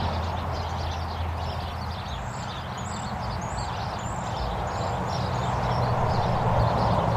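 Road traffic ambience: steady tyre and engine noise as vehicles pass, one engine hum fading about two seconds in and another building toward the end. A run of short high chirps sounds in the middle.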